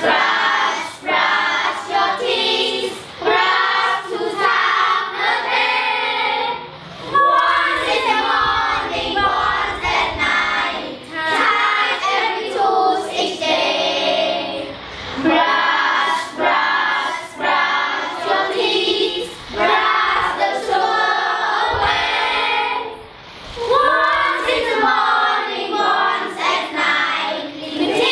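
A group of children singing a toothbrushing song together, in short phrases with brief pauses between lines.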